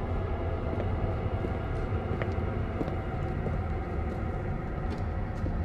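A steady low rumbling drone with several held tones, unchanging in level, with a few faint ticks scattered through it.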